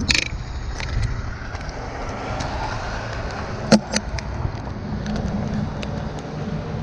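A low, steady engine rumble, with a few sharp clicks, the loudest a close pair about four seconds in.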